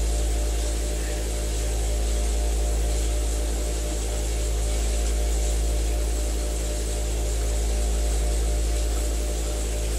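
TheraPlate equine vibration platform running with a steady low mechanical hum, its loudness swelling and easing gently about every three seconds.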